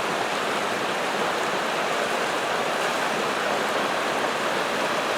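Creek in flood, running fast: a steady rushing of water.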